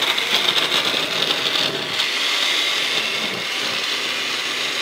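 Electric countertop blender running at full speed, puréeing roasted tomatillos, chiles, onion and garlic with water into green salsa. The sound is a little rougher in the first two seconds while the chunks break up, then runs steady.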